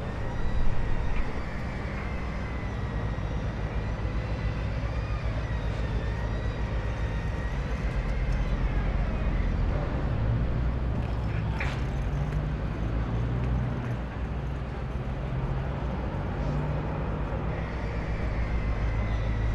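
Construction site ambience: heavy machinery engines running steadily, with a faint wavering high whine over the rumble. One sharp knock stands out near the middle.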